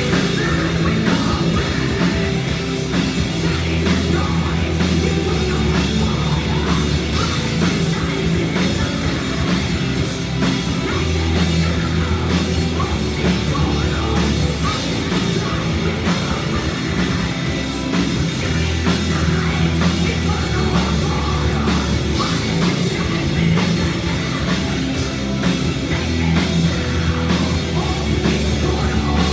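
Heavy metal band playing live, with guitars, drums and bass. Deep low notes are held for a few seconds at a time and come back every several seconds.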